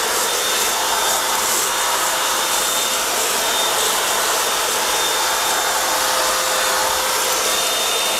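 Small canister vacuum cleaner running steadily, a constant motor whine over the hiss of rushing air as it sucks up puffed rice from the floor.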